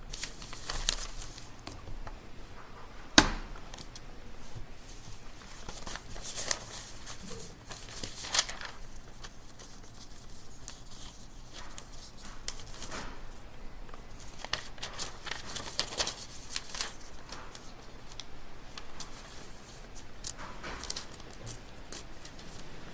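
Library ambience: a quiet room with scattered paper rustling and small clicks, and one sharp knock about three seconds in.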